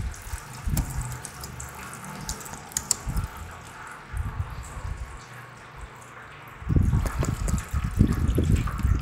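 Old coolant pouring and splashing from a SYM TL500 scooter's radiator drain into a metal drain pan. It turns loud about two-thirds of the way in, after a stretch of faint handling clicks while the radiator cap is taken off.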